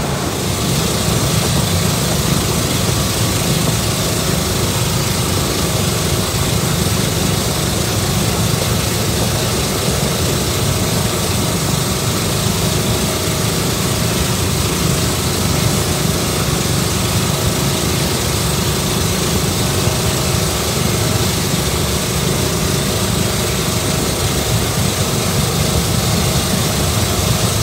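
Boat engine running steadily, a low rumble under a constant rushing hiss.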